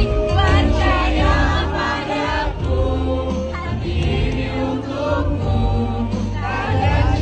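Several voices singing a pop song together over amplified instrumental accompaniment with a steady bass line.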